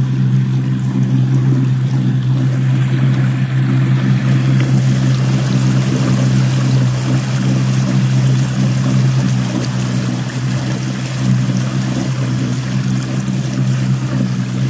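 Inflatable boat under way, driven by electric outboard motors: water rushing and churning in the propeller wash behind the stern, over a steady low hum.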